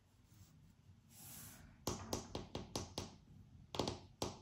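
Light clicks and taps of long acrylic nails and tarot cards against a wooden tabletop as the cards are handled, coming in two quick runs from about two seconds in.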